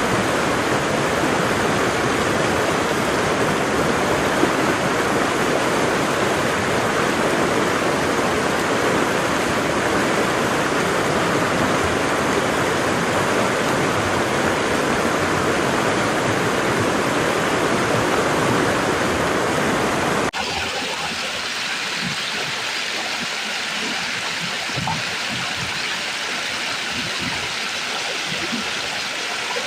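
Waterfall: a steady rush of falling water. About two-thirds of the way through it cuts abruptly to a slightly quieter, thinner water sound with less low rumble.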